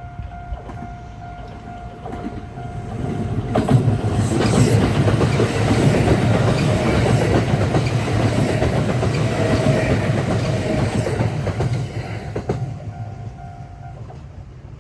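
Level crossing warning bell ringing steadily as a Kintetsu 3200-series electric train passes over the crossing. Its wheels clatter over the rail joints, loudest from about four to eleven seconds in, then fade. The bell is heard again after the train passes and stops shortly before the end.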